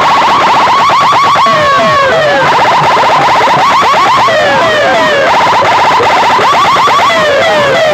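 Electronic siren and alarm effects played loud through a large DJ sound system: quick repeating chirps at one pitch alternating with short falling sweeps.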